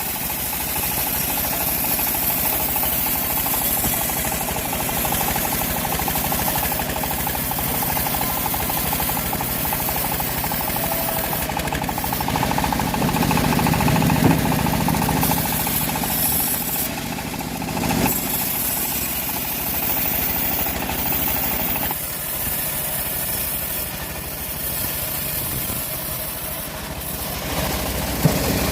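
Engine-driven homemade band sawmill running steadily as its blade cuts through a teak log. The sound gets heavier and louder around the middle, with a single sharp knock a little later, then eases off.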